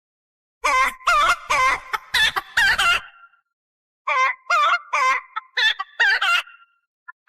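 Hen-like squawking cackle calls in two quick runs of about five and six calls, each call wavering in pitch. The second run starts about four seconds in.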